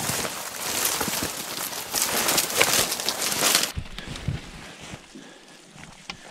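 Dense rustling and crackling of dry brush, twigs and fallen leaves being pushed through and handled close to the microphone. A bit past halfway the crackling cuts off abruptly, leaving quieter scattered knocks and a few low thumps.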